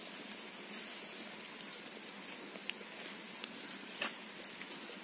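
Steady faint outdoor hiss with scattered light clicks and crackles from dry leaf litter and handling, the sharpest about four seconds in.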